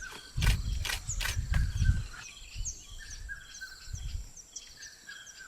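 Wild outdoor ambience: repeated short bird chirps and a steady high insect whine, with a few low rumbling thuds and clicks in the first two seconds.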